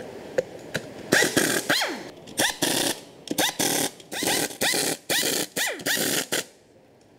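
Pneumatic screwdriver driving the crankcase bolts of a 125cc motorcycle engine: a quick run of short bursts of air hiss and motor whine, each whine rising and falling in pitch. The bursts stop shortly before the end.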